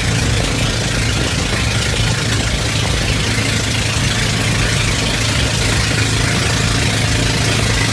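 Boat engine running steadily with a constant low hum, under a steady hiss.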